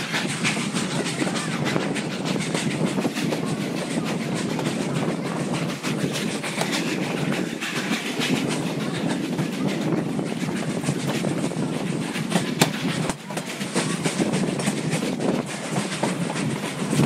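Durango & Silverton narrow-gauge train rolling along the track, heard from on board: a steady rumble and rattle of the cars, with the wheels clicking over the rail joints. A sharper click stands out about twelve and a half seconds in.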